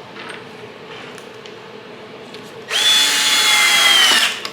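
Power drill driving a screw into wood: a short quiet spell with a few light clicks, then about a second and a half of steady motor whine that drops in pitch as it stops near the end.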